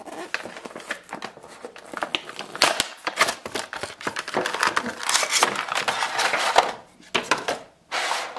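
Cardboard action-figure box being torn open and its clear plastic blister tray crinkling as it is pulled out: dense, irregular crackling and rustling that drops out briefly about seven seconds in.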